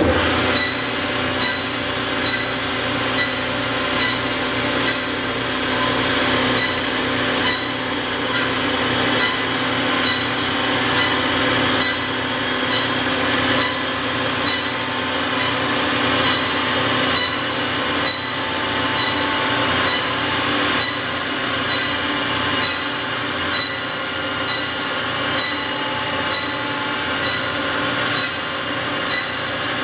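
Doall C305A automatic horizontal bandsaw switched on and running steadily, dry with no coolant in the machine. A sharp tick repeats evenly a little more than once a second over the steady machine hum.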